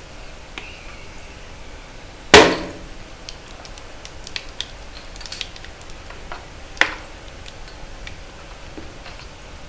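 Dried magnesium carbonate chalk reforms being crushed: a loud crunching crack a little over two seconds in and a sharper one near seven seconds, with small pops and crackles of crumbling chalk in between.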